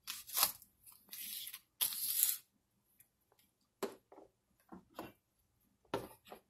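Light handling noises on a kitchen counter: a click, two short rustles about one to two seconds in, then a few scattered soft taps and clicks.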